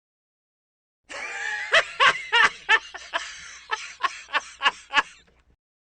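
Laughter: a run of about ten short ha-ha bursts over a fainter background of voices, starting about a second in and stopping about five seconds in.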